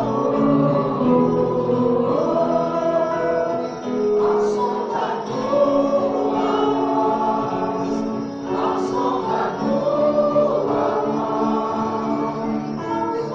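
A group of voices singing a Christian gospel song together with musical backing.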